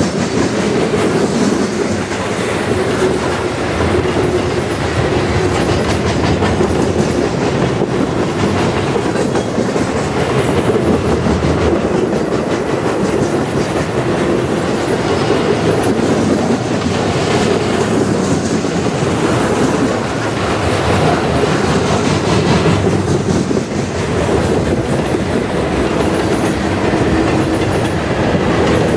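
Freight cars of a CN manifest train rolling past: a steady, loud noise of steel wheels running on rail, with no horn.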